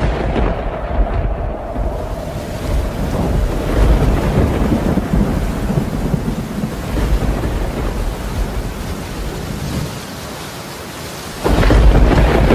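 Thunderstorm sound effect: a heavy thunderclap rolling into a long rumble over steady rain, then a second sudden loud crack of thunder near the end as lightning strikes.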